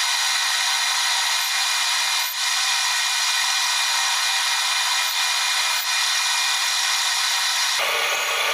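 Metal lathe running steadily while a tailstock drill bores into a brass workpiece, giving a steady hiss. The sound changes abruptly shortly before the end.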